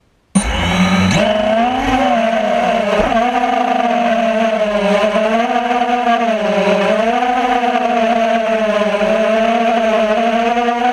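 A 250-size racing quadcopter's electric motors and propellers, heard from its onboard GoPro, start suddenly and whine steadily. The pitch rises and falls as the throttle changes while it lifts off and flies low.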